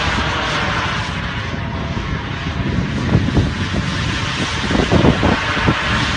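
Carf-Models J-10 radio-controlled model jet in flight: its engine gives a loud, steady rushing noise, with a few short low thumps about three and five seconds in.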